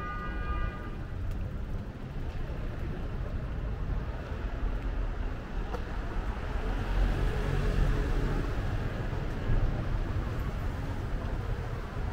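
City street traffic: a steady low rumble of cars on the road, swelling as a vehicle passes close by about seven seconds in. A short high-pitched note sounds at the very start.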